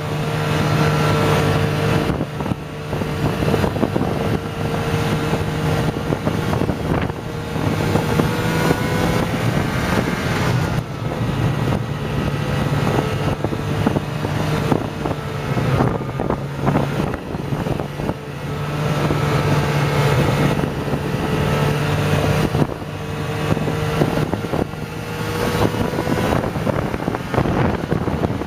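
Snowmobile engine running at trail speed, its pitch dipping and rising a few times with the throttle. Wind buffets the microphone, and the ride over the trail adds jolts.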